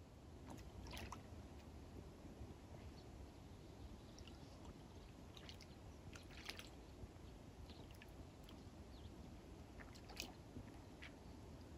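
Near silence: faint outdoor ambience with a low rumble and a few short, soft water splashes from a dog wading in shallow lake water, about a second in, around six seconds and near ten seconds.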